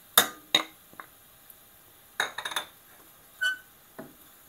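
Kitchen clatter: small china bowls and a wooden spoon knocking against a steel cooking pot as spices are tipped in. A few sharp clinks and taps come singly, with a quick cluster about two seconds in and a short ringing clink about three and a half seconds in.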